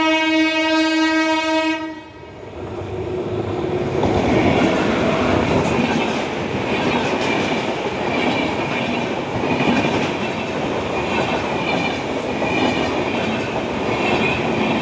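Train horn sounding one long, steady note for about two seconds, then the train running with a rolling rumble and the clickety-clack of its wheels on the rail joints.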